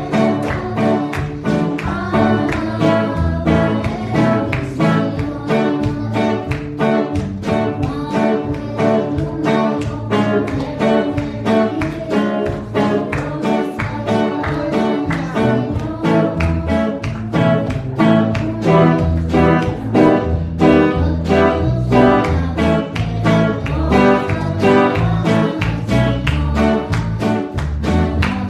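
A girl singing a worship song into a microphone over strummed guitar accompaniment with a steady beat.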